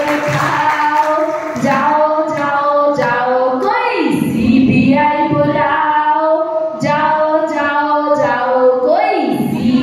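A song sung by female voices, with a melody that runs on without pause.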